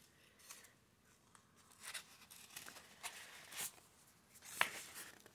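Faint crinkling and rustling of a small paper sticker envelope being handled and unfolded, in a handful of short scrapes, the loudest a little before the end.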